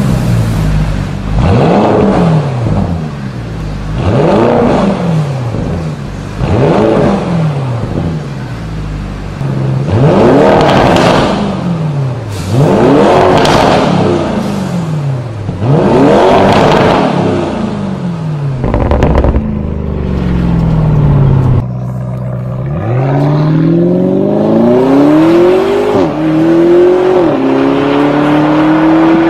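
Audi RS Q8's twin-turbocharged 4.0-litre V8, through a Fi Exhaust valvetronic cat-back and downpipe, revved in short blips while standing: first with the exhaust valves closed, then louder with the valves open. Near the end it launches at full throttle in one long rising pull, with the pitch dropping twice at upshifts.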